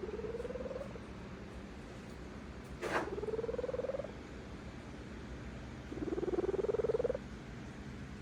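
Domestic cat purring in her sleep: a content, pulsing purr that swells in phases about a second long, slightly rising in pitch, about every three seconds with her breathing. A short sharp click about three seconds in.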